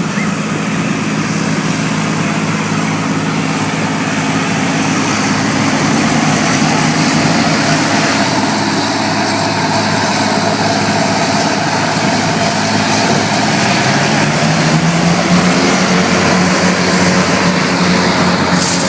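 Hovercraft running: a steady engine hum under a loud rushing of air and spray. The engine note rises slightly about fourteen seconds in.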